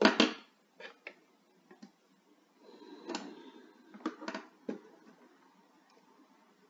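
A loud thump right at the start, then a few scattered soft clicks and knocks, with a brief soft rustle in between.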